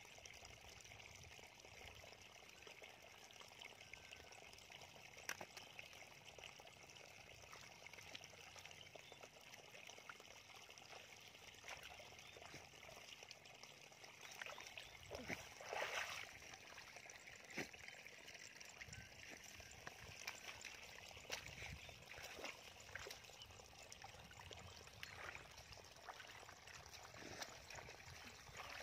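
Faint sloshing and small splashes of hands groping through shallow muddy water, with scattered light splashes and one louder splash just past halfway.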